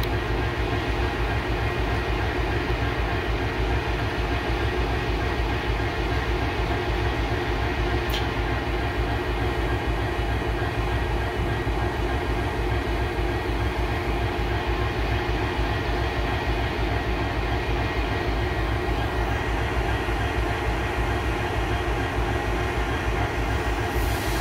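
Steady engine drone with a heavy low rumble and a faint constant hum, unchanging throughout.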